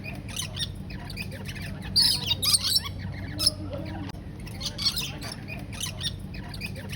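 Many birds in an aviary chattering and squawking, with short overlapping calls and louder bursts about two, three and a half and five seconds in, over a low steady hum.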